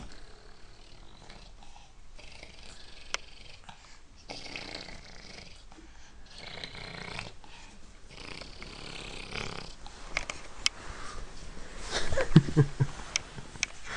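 A toddler's breathy huffs, coming about every two seconds, mixed with the rustling of nappies and clothes as he pulls them off a shelf. About twelve seconds in there is a louder cluster of knocks and handling noise, with a short low grunt-like sound, followed by a few sharp clicks.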